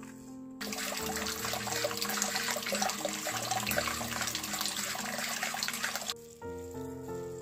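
Water from a plastic tap jetting into a near-empty plastic basin, a steady splashing rush that starts about half a second in and stops suddenly about six seconds in. Background music plays under it.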